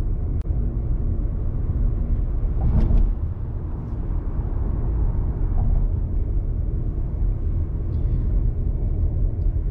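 Steady low rumble of a car's engine and tyres heard from inside the cabin while driving at highway speed, passing through a short road tunnel. The rumble swells briefly about three seconds in.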